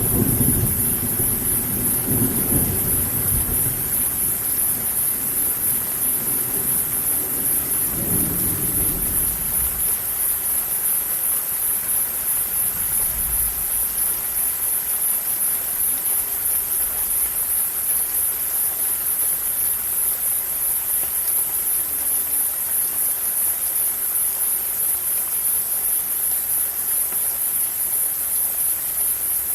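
Steady rain with thunder rumbling in the first few seconds, dying away by about three seconds in, and a shorter, weaker rumble about eight seconds in. After that there is only the even hiss of rain.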